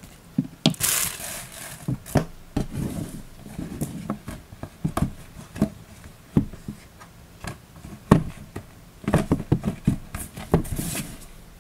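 Cardboard packaging handled on a tabletop: plastic wrapping rustles about a second in, then a rigid box is shut and moved about with scattered light knocks and taps, which come thickest near the end.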